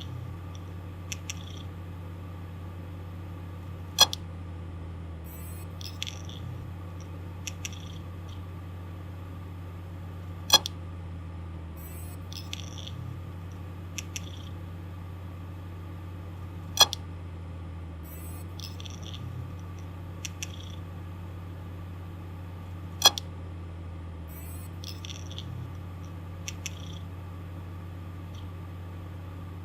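Malfunctioning hard disk drive running with a steady low hum. Every six seconds or so it gives a loud sharp click, with small groups of faint ticks in between, in a repeating cycle typical of a failing drive.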